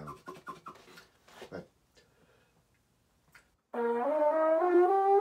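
Valve trombone blown in a quick play test: a sustained note starting about two-thirds of the way in, stepping upward through a few pitches. Before it, a few quick clicks as the instrument is handled.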